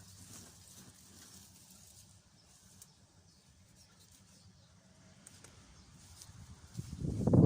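Faint scattered rustles and small clicks, then near the end a loud gust of wind buffets the microphone with a low rumble that swells and fades within about a second.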